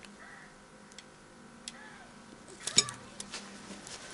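Pliers clicking against a pack of rechargeable cells as they pry at the spot-welded connecting strips, with a sharp clatter a little under three seconds in.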